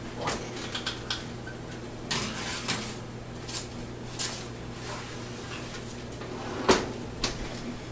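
Clatter of a tray of cookies being put into an oven and the oven door handled: scattered metal knocks and scrapes, with the loudest knock near the end.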